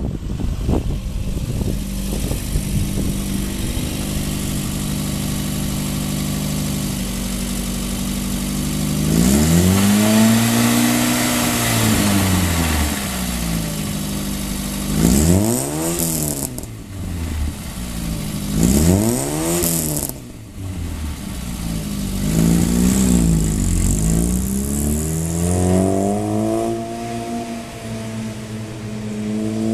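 1984 Volkswagen Scirocco's eight-valve four-cylinder engine breathing through aftermarket headers, a cat-back system and a Magnaflow open muffler. It runs steadily at first, then is revved hard in three sweeps that climb and drop in pitch, about nine, fifteen and eighteen seconds in. Smaller revs follow, and the pitch climbs again near the end.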